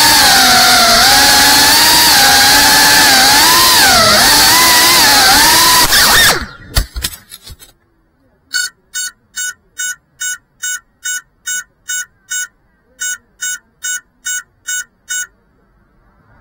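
FPV quadcopter's brushless motors whining, the pitch rising and falling with the throttle, then a crash about six seconds in: a few sharp knocks and the motors stop. After a short pause the downed drone's beeper sounds in short, even beeps, a little over two a second, with one brief gap.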